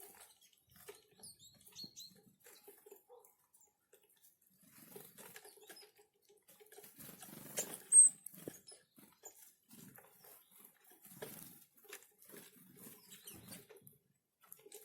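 Small forest birds at a winter feeding spot: scattered light taps and rustles of pecking and hopping, a few faint high calls, and one sharp high chirp, the loudest sound, about eight seconds in.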